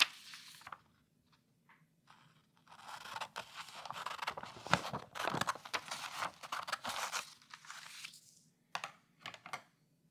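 A blank sheet of paper being handled close to the microphone: a short rustle at the start, a long stretch of crisp rustling and crackling from about two and a half seconds in to about eight, then two short rustles near the end.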